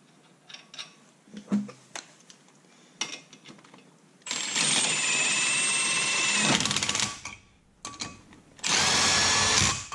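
Light metal clicks as lug nuts are threaded onto wheel studs by hand. Then a Milwaukee cordless impact driver with a socket adapter spins the lug nuts down to hold a brake rotor on the hub, in two runs: one of about two seconds starting about four seconds in, and a shorter one near the end.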